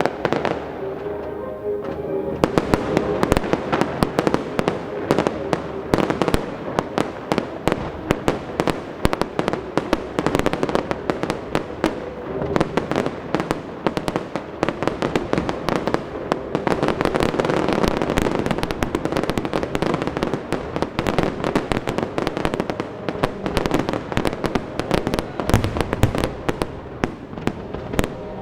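Fireworks display: a dense, rapid barrage of bangs and crackling bursts that starts about two seconds in, over classical orchestral music.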